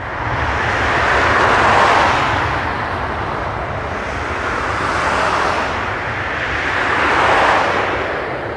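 Boeing 787-9 jet engines running as the airliner taxis, a loud roar that comes in suddenly and swells twice, about two seconds in and again near the end.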